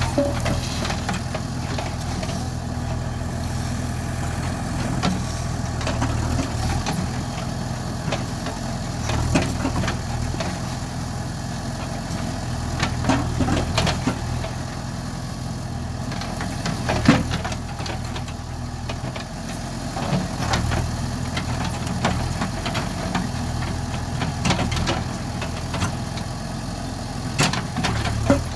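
Diesel engine of a JCB backhoe loader running steadily at low revs, with occasional sharp knocks and clanks as it works the ground.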